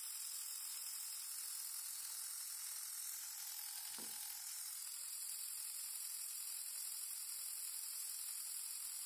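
A 150-watt, 48-volt geared DC motor running steadily on a 24-volt supply, at about half its rated speed: an even, hiss-like whir with a faint steady tone. One light handling knock comes about four seconds in.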